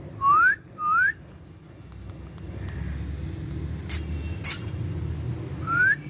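Indian ringneck parakeet whistling: two short rising whistles in quick succession, then a third near the end, with a few faint clicks in between.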